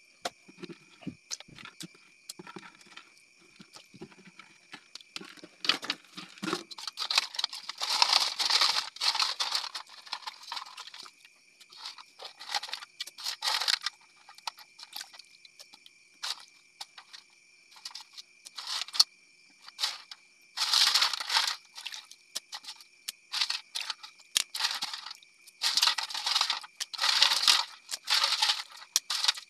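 Crabs, sea snails and octopus handled by hand in water and in a metal wok: softer low knocks at first, then repeated rustling, clattering bursts of shells a second or two long. A steady high-pitched tone runs underneath.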